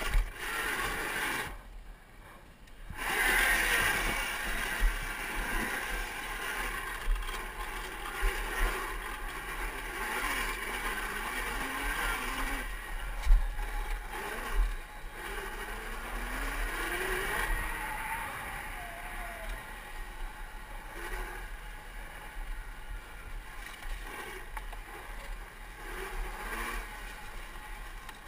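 2012 Zero MX electric dirt bike being ridden over rough, rutted dirt: tyres scraping and crunching on soil and rock, with knocks and rattles from the chassis. The electric motor's whine rises and falls with speed. A sharp knock about halfway through is the loudest sound.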